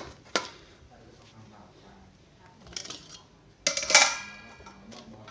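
Metal parts handled on a workbench: a couple of sharp knocks at first, some light clinks, then a louder metallic clang about four seconds in that rings briefly.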